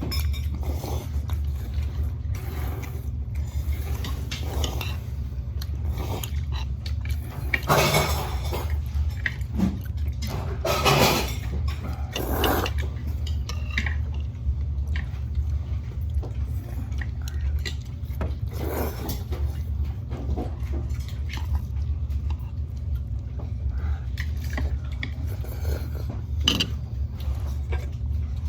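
Eating at the table: utensils clinking and scraping against dishes in scattered short clicks, with a few louder noisy moments, over a steady low hum.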